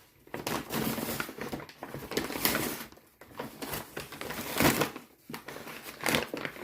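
Packaging rustling and crinkling as it is handled and opened by hand, in three runs with short pauses about three and five seconds in.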